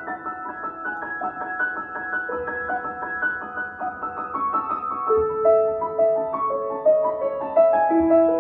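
Background music: a piano playing a gentle melody of quick repeated notes over held chords, growing slightly louder about five seconds in.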